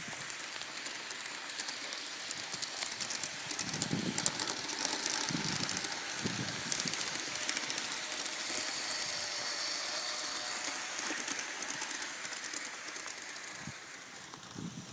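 Model freight train running past: rapid clicking of the cars' wheels over the rail joints, with a thin high whine while the diesel locomotive goes by, fading as the caboose passes near the end.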